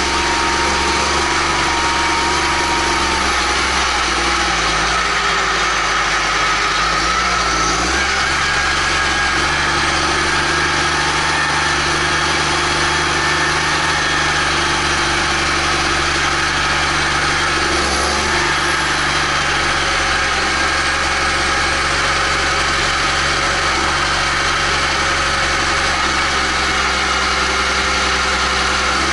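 Case IH Magnum 310 tractor's six-cylinder diesel engine running, heard close to its exhaust stack. The engine note wavers a few seconds in, then holds steady.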